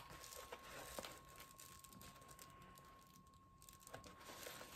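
Near silence, with faint crinkling and rustling of stiff synthetic fabric being handled and a couple of soft taps, over a faint steady tone.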